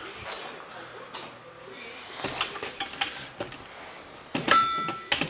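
Clatter of metal objects being handled on a workbench: scattered knocks and clicks, then a loud metallic clank near the end that rings briefly.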